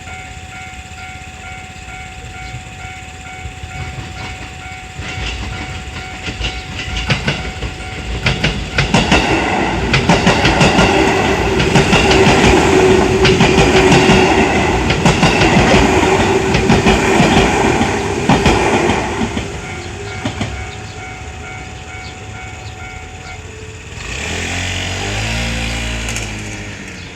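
A Japanese railroad crossing alarm rings steadily and repeatedly while a JR 221 series electric train passes. The train's wheels clatter over the rail joints, loudest about halfway through, and a steady whine comes from the train. The crossing bell stops a few seconds before the end, and a different, lower sound begins.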